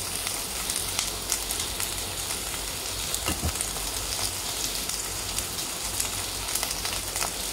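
Sliced onion, garlic and ginger sizzling in hot oil in a pot as the aromatics fry until fragrant. The hiss is steady, with scattered light clicks and a soft knock about three seconds in.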